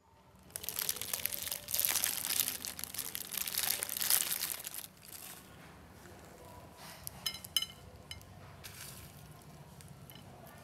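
Dressed shredded-chicken salad with onion and herbs being piled onto a ceramic plate: several seconds of crinkly, crunchy rustling. About halfway through it goes quieter, and a few light clicks follow as roasted peanuts are sprinkled onto the salad.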